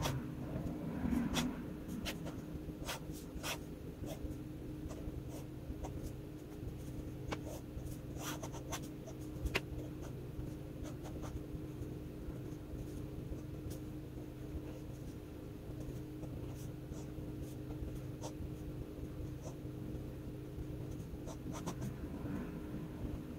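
Flex-nib fountain pen (FPR Himalaya V2, ultra-flex nib) scratching and tapping on sketchbook paper in short, irregular strokes, over a faint steady hum.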